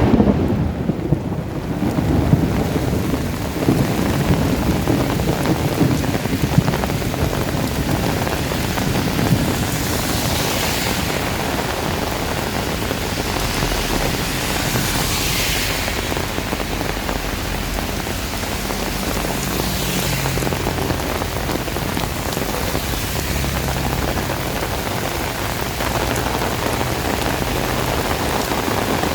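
Heavy tropical downpour, rain pouring steadily. A low rumble with sharp peaks runs through the first ten seconds or so, and hissing swells come in about every five seconds in the middle.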